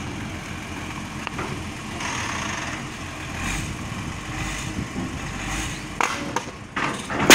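Truck's steel-and-timber loading ramp being tipped down by hand: a few knocks and clanks near the end, then it slams onto the concrete right at the very end, the loudest sound. Steady vehicle noise runs underneath.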